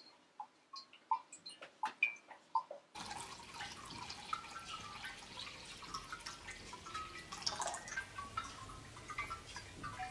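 Water dripping into terracotta vessels, each drop a short pitched plink. About three seconds in, water poured from a small jug adds a steady trickle with many overlapping plinks and a falling gurgle.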